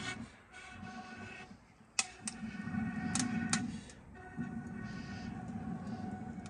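Long puffs of breath blown through a blowpipe into a wood fire, in several blows with short pauses between them. Each blow carries a steady pitched tone. A few sharp crackles from the burning wood come about two to three and a half seconds in.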